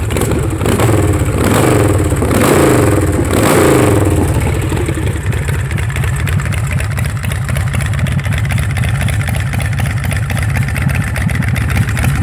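S&S Super Sidewinder 124 cubic inch V-twin in a West Coast Choppers CFL chopper, revved in a few quick blips over the first four seconds, then settling into a steady idle.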